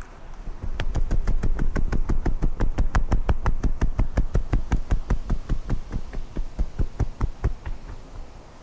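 Quick, even thumps of a cat's footsteps, about five or six a second, picked up close by a camera worn on the cat's body. They start about half a second in and fade near the end.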